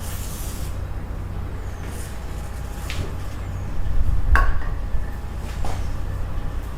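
A few short metallic clinks and clanks, as of steel tools and bearing parts being handled, over a steady low rumble. The loudest clank, with a dull thump, comes about four seconds in.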